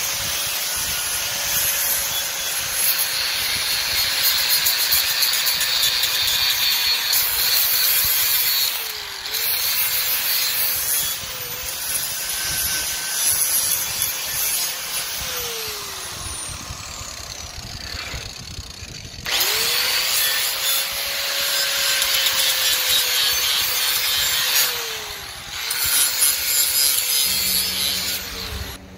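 Angle grinder running against steel plate, its motor whine dipping briefly in pitch several times as it is pressed into the work. About two-thirds of the way through it stops for a moment, then spins back up and runs again until it cuts off at the end.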